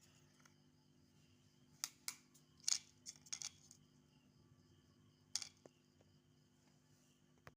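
A few faint sharp clicks and taps, about half a dozen between two and five and a half seconds in, over a low steady hum.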